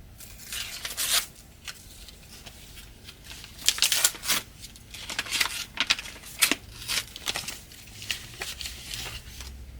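A mailed package being ripped open by hand: several short bursts of tearing and crinkling packaging.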